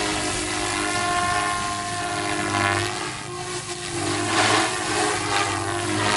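SAB Goblin 380 electric RC helicopter in aerobatic flight: a steady high whine from the motor and rotor head with several tones that shift in pitch, and whooshing blade swishes that swell twice, loudest about four to five seconds in as the rotor loads up in the flips.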